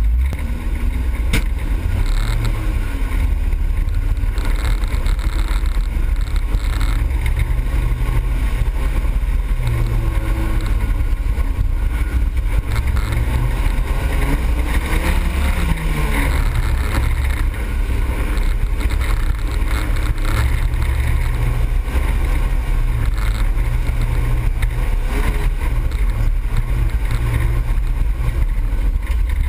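Autocross car's engine heard from inside the cabin under racing, loud and continuous, its pitch rising and falling as the driver accelerates and lifts off.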